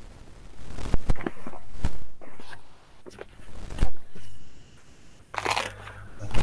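Handling noise close to a computer microphone: several sharp knocks and crunching rustles, with a louder burst of rustling near the end.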